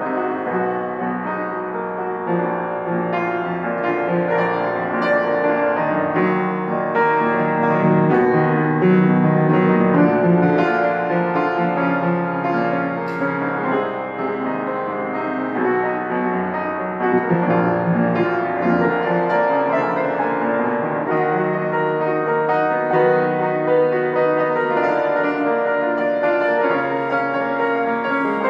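Grand piano played without pause: full, sustained chords with notes moving through the middle and lower range.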